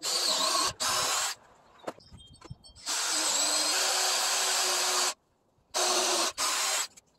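DeWalt cordless drill boring into a wooden 4x4 beam, run in bursts: two short ones at the start, a longer run of about two seconds in the middle, and two short ones near the end.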